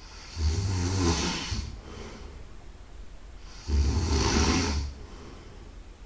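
A person snoring loudly in sleep: two long snores, each a little over a second, about three seconds apart, with a quieter breath between them.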